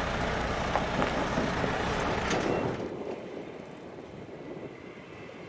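Concrete-mixer truck (a MAN tractor unit with a Liebherr mixer semi-trailer) running: a steady broad noise that fades over the second half as the truck is seen farther off.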